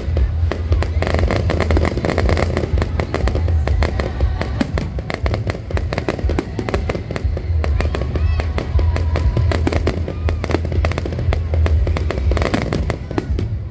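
Fireworks display going off: a dense, rapid string of crackles and bangs, many a second, over music with heavy bass.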